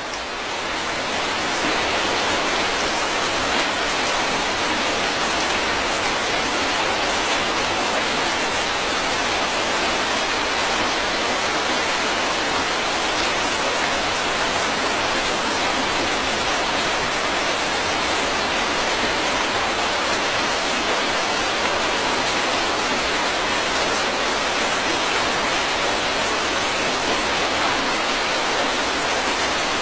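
Steady rain falling: an even, dense hiss with no separate drops standing out, fading in over the first second and then holding level.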